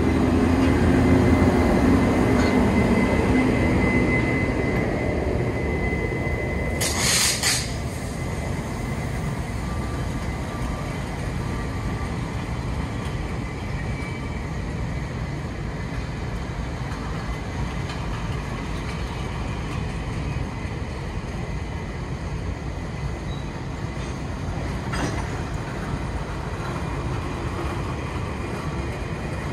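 Taiwan Railway E200-class electric locomotive pulling out past the platform, loudest in the first few seconds, followed by a line of parcel vans rolling by at low speed with a steady rumble of wheels on rail. There is a brief high-pitched burst about seven seconds in.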